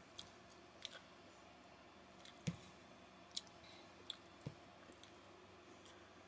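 Near silence broken by a few faint clicks and two soft knocks, the louder about two and a half seconds in and the other about two seconds later: small sounds of a fork being handled while eating.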